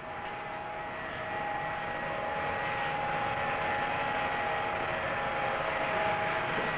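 Steady machinery drone with several steady whining tones, slowly growing louder.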